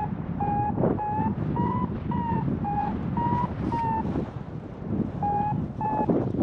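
Paragliding variometer beeping in short tones about two a second, its pitch creeping up a little and then dropping back, pausing for about a second before resuming near the end: the audible signal that the glider is climbing in rising air. Wind rushes over the microphone throughout.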